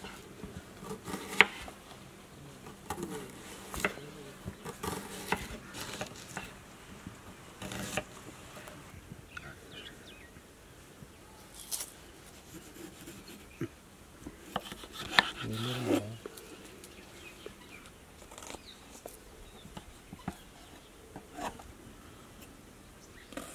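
Kitchen knife cutting tomatoes on a wooden board: irregular slicing cuts and taps of the blade against the board, with a faint steady buzz behind them.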